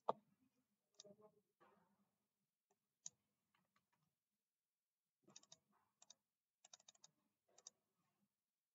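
Faint computer mouse clicks and keyboard key presses: a sharp click right at the start and a few single clicks over the next three seconds, then a quicker run of clicks from about five to eight seconds in.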